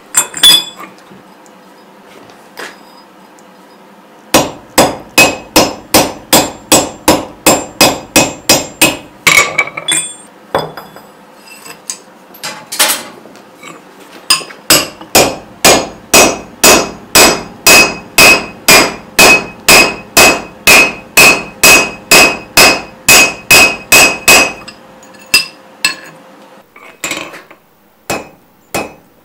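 Blacksmith's hand hammer striking hot steel on an anvil, forging a small nail from round bar. The blows come in steady runs of about three a second, one from about four to ten seconds in and a longer one from about fifteen to twenty-five seconds, each blow ringing with a high note from the anvil. A few scattered blows follow near the end.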